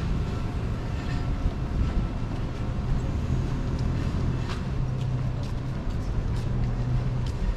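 Steady low hum of a nearby motor vehicle, with a few light clicks scattered through it.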